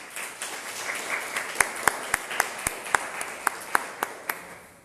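An audience applauding, with one person clapping sharply close by, about four claps a second. The applause dies away near the end.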